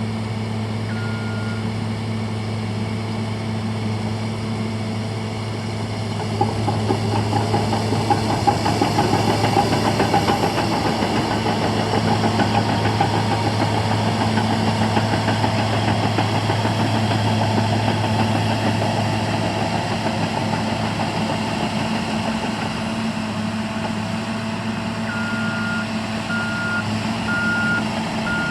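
Caterpillar 963C II track loader's diesel engine running steadily; about six seconds in it grows louder and busier, with some sharp knocks, as the machine is worked. Near the end its reversing alarm starts beeping repeatedly, a bit more than once a second.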